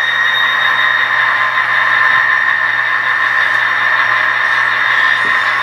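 A pair of coupled model diesel locomotives running together along the track, giving a steady high whine.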